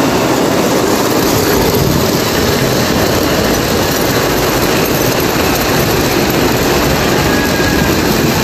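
Three-rail O-gauge toy train running past close by: a steady noise of the wheels rolling on the metal track and the motor running, growing fuller in the low end as the cars arrive.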